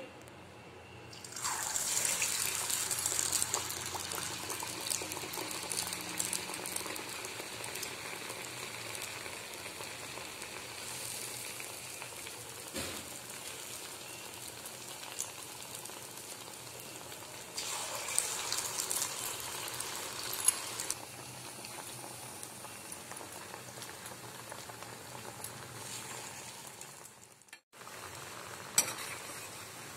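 Batter-coated bottle gourd slices deep-frying in hot oil in a kadai: a steady sizzle that swells loudly about a second and a half in and again around eighteen seconds, as fresh battered slices go into the oil, with a few light clicks.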